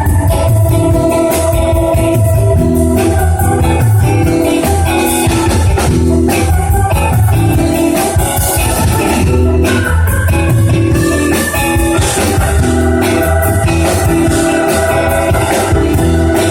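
Recorded band music with organ over a steady, repeating bass line.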